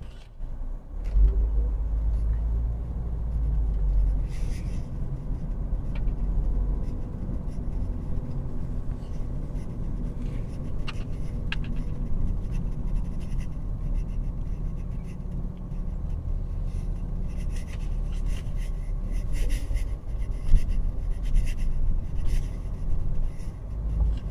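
Car cabin noise while driving: a steady low rumble of engine and tyres, with a few faint clicks.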